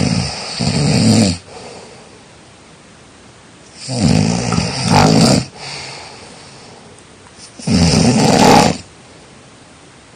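A person snoring in sleep: three loud snores about four seconds apart, the first two each in two parts.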